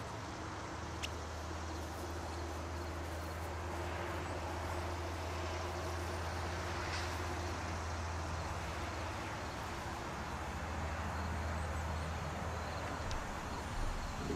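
A steady low hum starts about a second in and fades near the end, over faint outdoor background noise.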